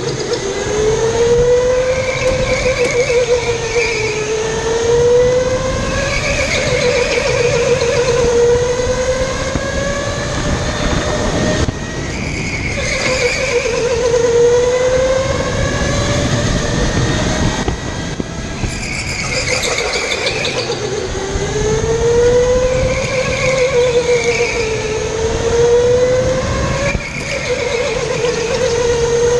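Electric go-kart motor whining as the kart laps. Its pitch climbs and falls again every few seconds as the kart speeds up on the straights and slows for the corners, over steady tyre and track noise.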